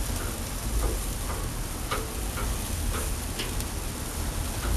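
Vegetables sizzling on a grill with a steady hiss, broken by scattered light clicks as the pieces are turned on the grate.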